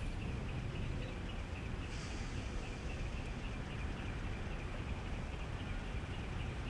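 Steady low rumble of idling truck engines, with a fast, evenly repeated high chirping over it.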